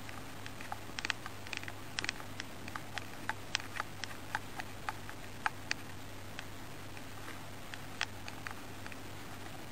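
Light, irregular clicks and ticks, a few a second and thinning out after about six seconds, over a steady low hum.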